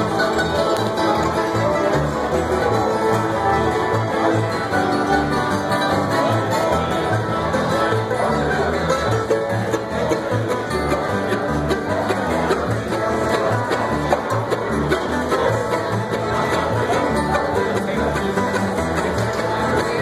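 Live acoustic bluegrass band playing an instrumental passage: acoustic guitars strumming over a plucked upright bass line, with a quick picked lead on top.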